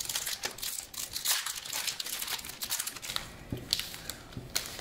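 A foil trading-card booster pack wrapper being torn open and crinkled by hand: a dense run of crackly rustling that thins to scattered crinkles in the last second or so.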